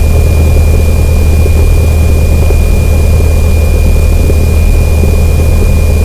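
Cessna 172N's four-cylinder Lycoming engine and propeller running at low taxi power: a steady low drone, with a thin steady high whine above it.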